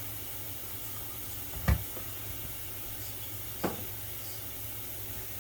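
Tap water running steadily into a bowl in the kitchen sink, a continuous hiss with a low hum under it. Two short knocks, about a second and a half in and again two seconds later.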